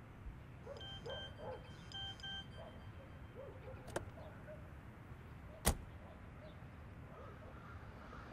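Low background hum with a few faint short beeps in the first couple of seconds, then two sharp clicks, the second one louder, around the middle.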